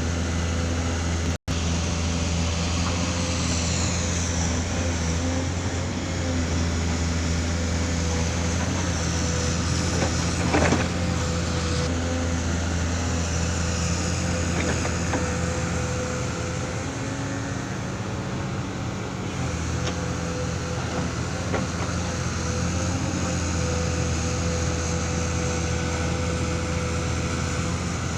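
A heavy engine running steadily at an even speed, with a single metallic knock about ten seconds in. The sound cuts out for an instant just after the start.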